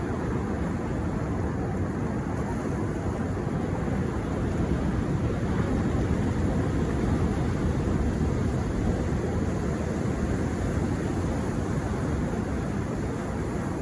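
Sea surf on a beach: a steady, deep rush of breaking waves that swells slightly around the middle.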